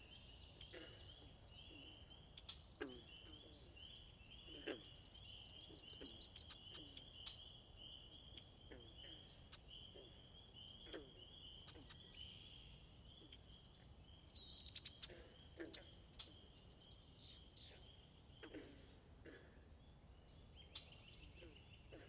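Faint outdoor birdsong: scattered bird chirps and calls over a steady, rapid trill of short repeated notes, with a few short low falling calls.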